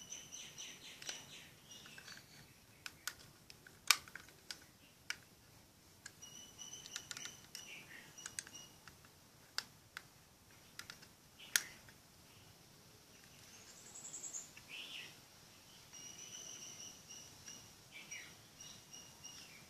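Sharp, scattered plastic clicks and snaps from a blue universal battery charger being handled, its clip and contacts worked by hand. Faint high chirps and trills sound throughout.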